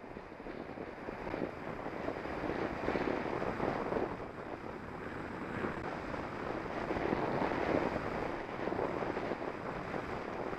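Wind buffeting the microphone of a Contour Roam action camera mounted on a moving bicycle: a steady rushing noise that swells and eases.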